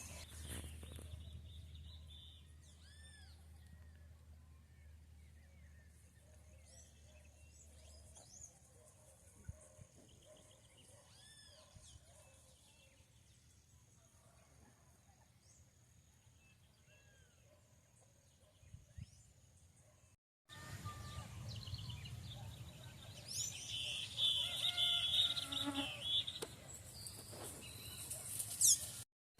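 Countryside nature ambience: scattered faint bird calls over a steady high-pitched insect whine. After a brief break the sound gets louder, with birds singing more busily in the middle of that stretch.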